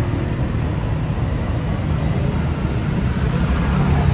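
Steady traffic noise from vehicles running along a busy city road, a continuous low rumble.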